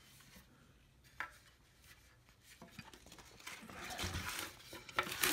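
Handling of a small wooden rocking chair as it is turned over and moved: a single light knock about a second in, then rising scraping and rustling with a couple of clicks near the end.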